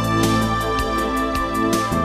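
Background music: held chords over a light, regular beat.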